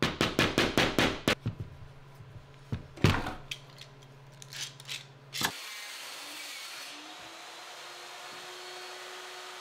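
A quick run of about eight sharp ratcheting clicks, then scattered clicks and a single knock, as one-handed bar clamps are squeezed tight onto boards. From a little past halfway, a power saw runs steadily with a faint whine that rises slightly and then holds, ripping boards.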